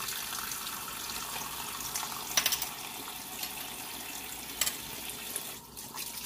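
Kitchen faucet running into the sink as hands are washed under the stream: a steady splashing hiss, with two brief sharp sounds about two and a half and four and a half seconds in.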